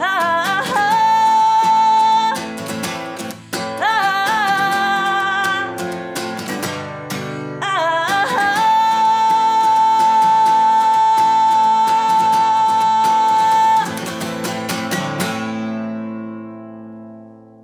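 A woman singing, accompanied by her own acoustic guitar, holding one long high note in the middle. The singing then stops and the final guitar chord rings out and fades away near the end.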